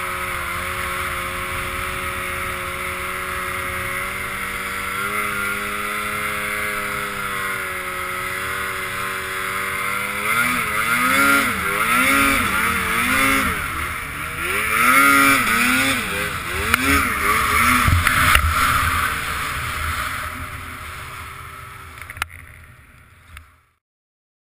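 Two-stroke snowmobile engine running at a steady pitch under way, then revving up and down about once a second for several seconds, over a steady hiss. The engine sound fades and cuts off abruptly near the end.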